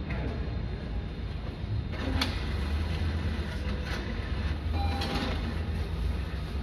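Steady low rumble of a car idling, heard from inside the cabin, with a few brief clicks.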